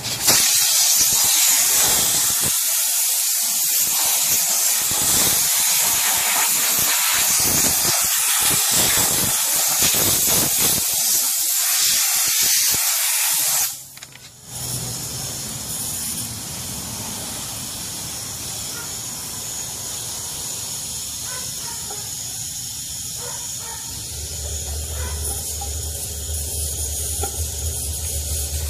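Handheld steam cleaner wand hissing loudly as it jets steam against a chrome wheel, cutting off abruptly about fourteen seconds in. After that a quieter steady noise with a low hum remains.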